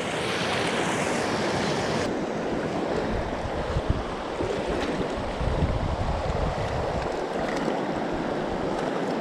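Steady rush of a fast mountain stream's flowing water, with uneven low wind buffeting on the microphone.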